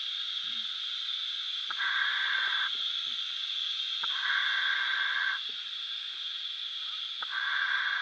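Scuba regulator hissing on each inhalation as the diver breathes: three breaths, each about a second long and opening with a click, roughly every two and a half to three seconds, over a steady high hiss.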